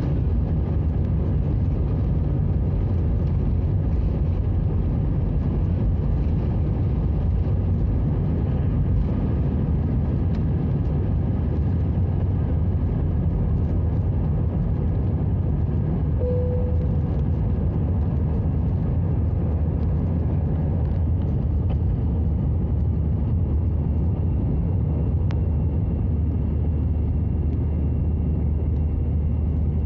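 Jet airliner cabin noise during takeoff: a steady loud low rumble of the engines at takeoff power, heard from a window seat over the wing as the plane rolls, lifts off and climbs. A brief tone sounds about halfway through.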